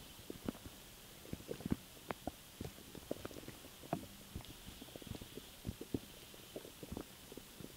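Human stomach gurgling from swallowed air: an irregular run of small pops and bubbling gurgles, several a second.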